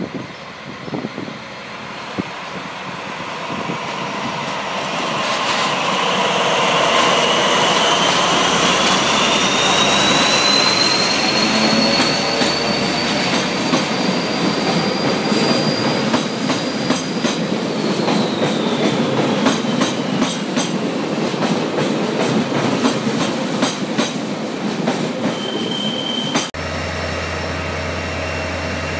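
SNCF BB 67300-class diesel locomotive 67346 and its train running into the platform, growing louder. A high wheel squeal rises in pitch, holds, then drops away, and the wheels clatter over rail joints as the coaches pass. About 26 s in, this cuts to the steady low drone of SNCF CC 72100-class diesel locomotive 72157 idling.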